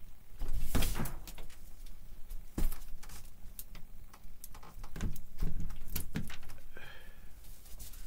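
Irregular clicks, knocks and rattles from handling a mountain bike being converted to an ebike: its handlebar controls being pressed and the bike being moved about.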